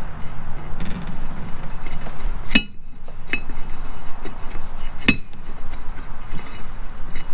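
Hand tools clinking on metal: two sharp strikes with a brief ring, about two and a half seconds apart, and a lighter clink between them.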